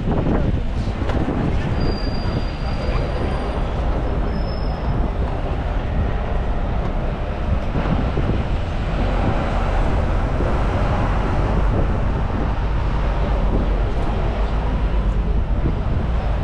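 Steady, loud rumble of a moving bus.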